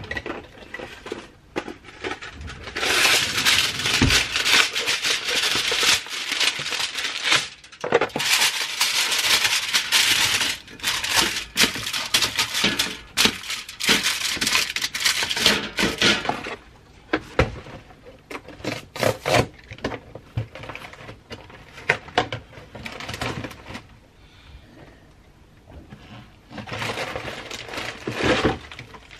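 Aluminium foil crinkling and crackling as it is spread and pressed by hand over a perforated metal pizza pan. The crinkling is dense for about the first half, then comes in scattered rustles.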